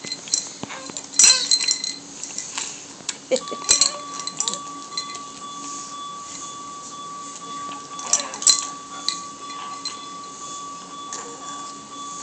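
Scattered light clicks and clinks of hard plastic teething toys being handled and knocked about, loudest about a second in, around four seconds in and around eight seconds in. Under them is a steady low hum, and a steady high tone comes in about three and a half seconds in.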